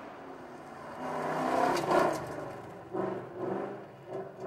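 Holden Commodore VT rally car's engine at high revs as it passes on gravel, loudest about two seconds in, then revving up and down a few times as it drives away.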